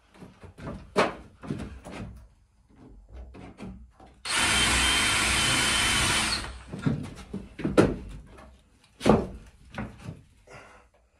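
DeWalt cordless drill-driver running steadily for about two seconds, driving a screw into the timber under the gunwale. Before it come scattered knocks and clatter of parts and tools being handled, and after it two sharp knocks.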